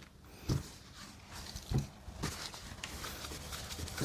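Quiet handling of a chrome truck grille being cleaned on a table: a few soft knocks, about half a second, one and three-quarter seconds and two and a quarter seconds in, over faint rubbing.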